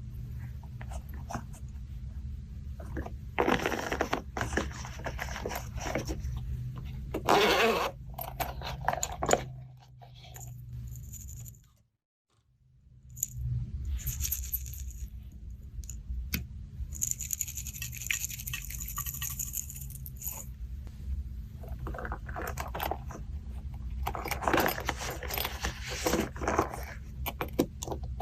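Slime being mixed and worked by hand, making irregular bursts of scraping and crackling sounds over a steady low hum, with a short break about twelve seconds in.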